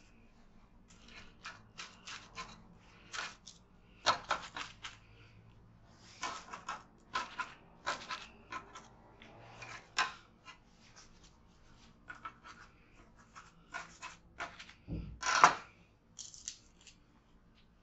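Plastic cling film crinkling and rustling in short bursts as it is handled and cut with a knife over loaves of bread dough on a wooden worktop. One louder thump near the end.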